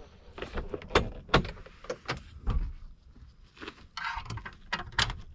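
Clicks, knocks and rattles of a Scania truck cab's bunk fittings being handled by hand: a metal latch and plastic trim under the upper bunk tugged while working out how the bed folds down. There is a short rubbing scrape about four seconds in.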